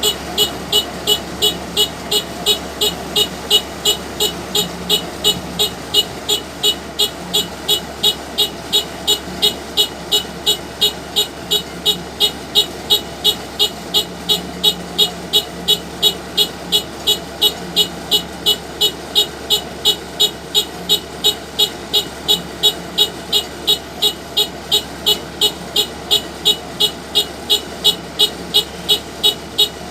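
Kubota DC-105X combine harvester running steadily while it crawls forward, with a loud electronic beeper sounding evenly, a little over two beeps a second, over the engine.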